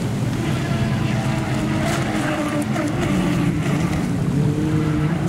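Boat motor running, its pitch wavering up and down, over splashing water and wind.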